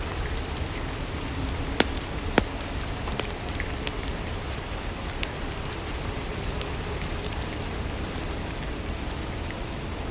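Steady rainfall, an even hiss of rain on a surface, with scattered sharp drops ticking through it, two of them a little louder about two seconds in.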